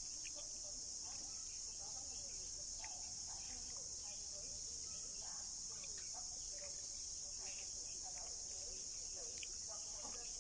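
Steady, high-pitched drone of an insect chorus, with faint, short scattered sounds underneath.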